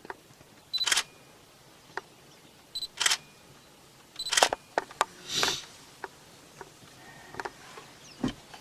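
Camera shutter clicking as photos are taken: three loud shutter clicks in the first half, with fainter clicks between and after.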